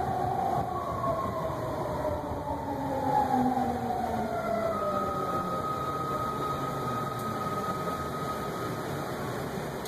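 BART train heard from inside the car as it slows alongside a station platform: a whine of several tones falling steadily in pitch over the first few seconds, then one steady high whine over the running rumble.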